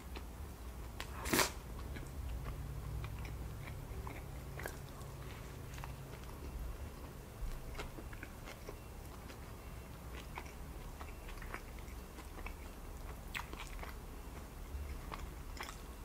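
A person biting into a chili-cheese-covered fried chicken sandwich, with one loud crunchy bite about a second in, then chewing with scattered small mouth clicks.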